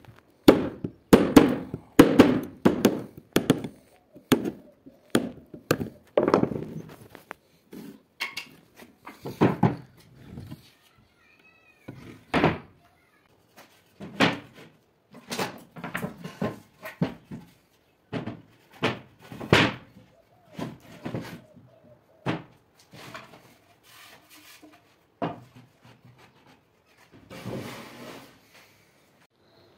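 Repeated sharp knocks and taps on plywood as a chisel is worked into a slot and the cut pieces are knocked together. The knocks come rapidly and loud for the first six seconds or so, then sporadically.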